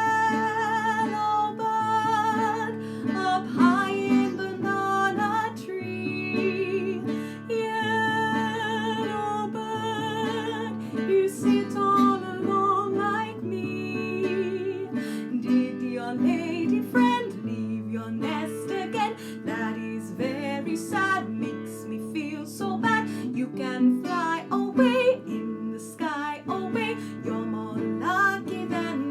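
Music: a strummed acoustic guitar keeps up chords under a higher melody line that wavers in pitch.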